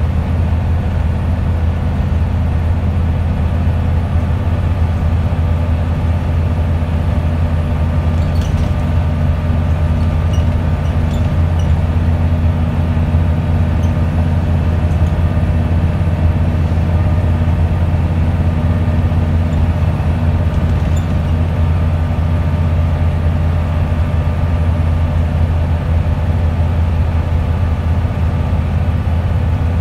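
Inside a Wright Solar-bodied Scania single-deck bus on the move: the engine's steady low drone, with road and tyre noise and no change in engine note. A few faint ticks come through about a third of the way in.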